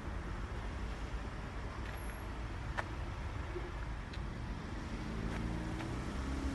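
Low steady rumble of idling diesel engines, with a steady humming engine note joining about five seconds in.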